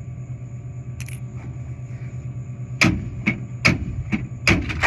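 Coins clicking and clinking at a soda vending machine's coin slot. There are several sharp metallic clicks, one about a second in and most of them bunched in the second half, over a steady low hum.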